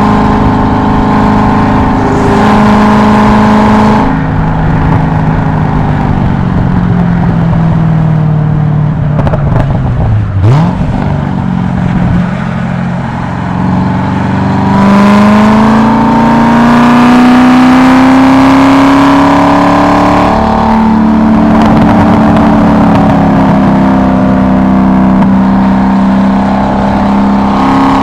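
Car engine heard from inside the cabin on a track lap. It holds a steady note at speed, then drops as the driver lifts and brakes about 4 seconds in, and gives a quick rev about 10 seconds in. From about 15 seconds the pitch climbs under hard acceleration, dips at a gear change about 20 seconds in, and then pulls again.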